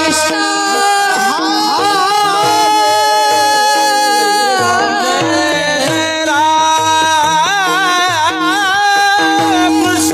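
A man singing a Marathi devotional song with long held notes and wavering, ornamented runs. Behind him are a steady drone and low, regularly repeated drum strokes.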